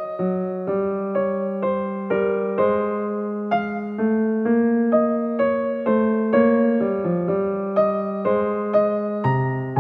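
Background music: a gentle piano melody, notes struck about twice a second over sustained lower notes.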